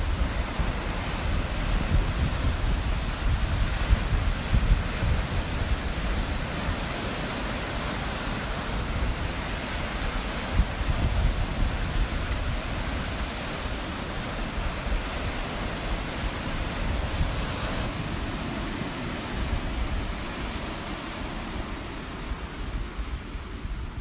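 Rough lake surf breaking against a concrete pier, a continuous wash of noise mixed with strong wind rumbling and buffeting on the microphone.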